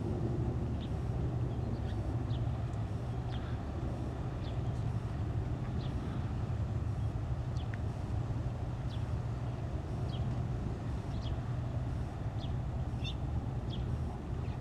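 Steady low rumble of distant traffic, with short high bird chirps scattered throughout.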